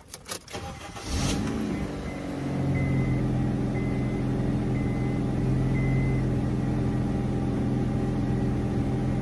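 An older Honda Civic sedan started with the key: a click or two at the ignition, then about a second of the starter cranking as the engine catches, then the engine idling steadily. A short high beep sounds about once a second, four or five times, soon after the engine starts.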